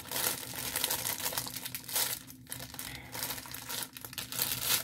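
Clear plastic packaging crinkling as it is handled and crumpled, with a couple of brief pauses.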